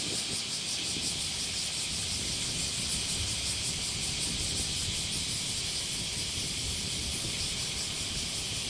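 A loud, steady cicada chorus with a fine pulsing buzz, over the low rumble of a JR Shikoku 2000-series diesel railcar running slowly toward the platform.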